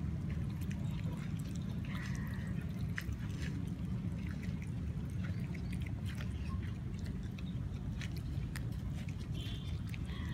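A puppy eating boiled rice from a steel bowl: scattered small clicks of chewing and mouthing at the food, over a steady low rumble.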